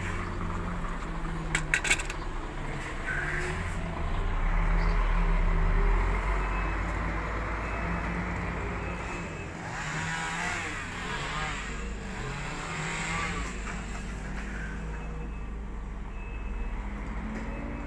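Heavy truck's diesel engine idling steadily, a low even hum that grows louder for a couple of seconds around four seconds in, with a few sharp clicks about two seconds in.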